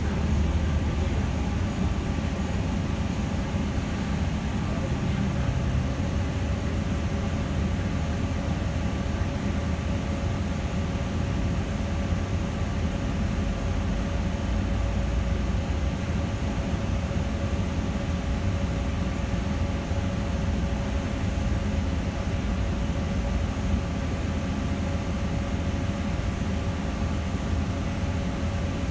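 Inside a New Flyer Xcelsior XN40 city bus under way: a steady low rumble of its Cummins L9N natural-gas engine and road noise, with a faint steady tone over it.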